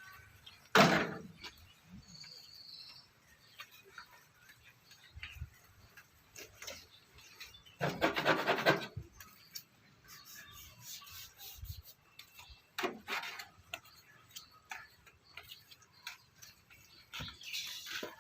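Intermittent scraping and rubbing strokes of body-filler work on a car panel, with a loud sharp knock about a second in and a longer burst of quick scraping strokes around eight seconds in.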